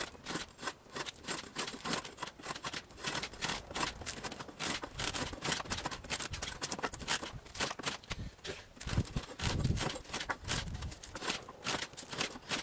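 Hand hacksaw cutting through a strip of pallet wood, with quick, even back-and-forth rasping strokes.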